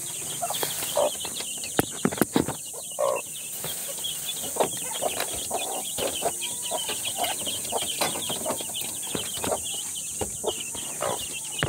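A brood of chicks peeping constantly in short high cheeps, with the mother hen giving a few lower clucking calls. Scattered knocks and rustles run through it.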